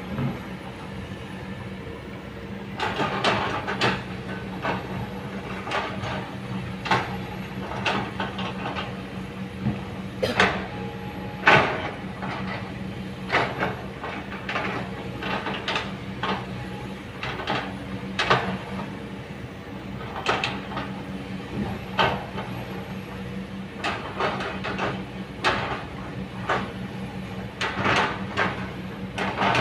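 Kobelco hydraulic excavator's diesel engine running steadily under load, with irregular clanks and scrapes as the bucket works earth and stones.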